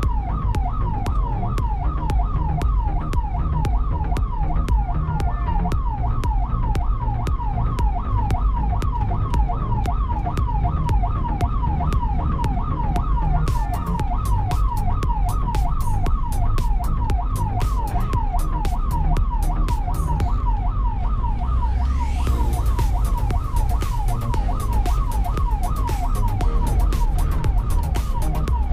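Ambulance electronic siren on a fast yelp, its pitch sweeping rapidly up and down several times a second without a break, over music with a steady beat.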